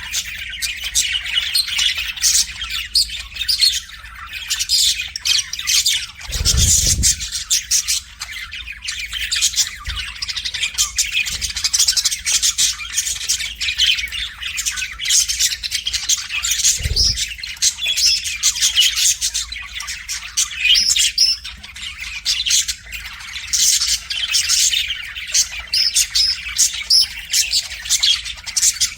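Budgerigar warbling: a rapid, continuous chatter of chirps, clicks and squawks. Two dull low thumps come about six seconds in and again around seventeen seconds.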